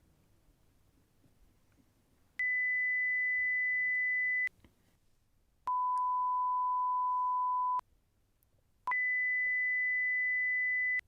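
Three steady pure test tones of a hearing test, each about two seconds long with short gaps between them: a high tone, one about an octave lower, then the high tone again.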